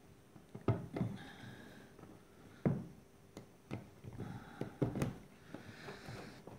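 Utility knife blade cutting and scraping through a thin polyethylene strip, trimming the excess off a freshly welded kayak repair: irregular clicks and taps with a few short scraping passes.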